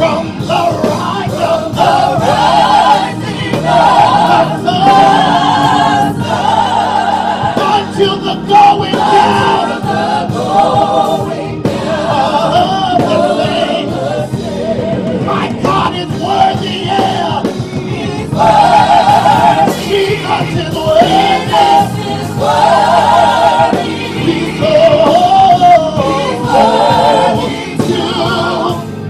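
Gospel praise team of several singers singing a worship song together, the sung notes wavering with vibrato.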